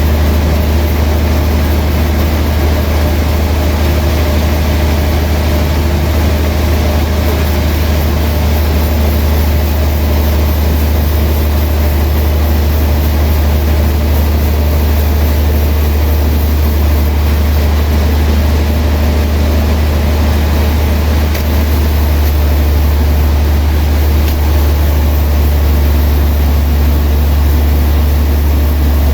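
Heavy sawmill machinery running steadily, a loud, even, deep hum with a noisy wash above it that holds without a break.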